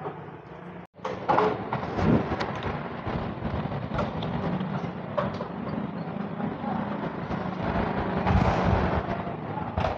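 A cat crunching dry kibble close up, with scattered sharp crunches over a steady low hum of background noise. After a brief dropout about a second in, the crunching gets louder.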